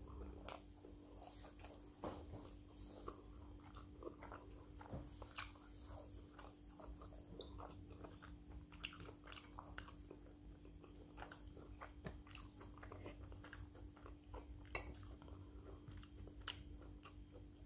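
A person chewing a mouthful of white rice and meat stew: faint, irregular wet mouth clicks and small crunches, with a steady low hum underneath.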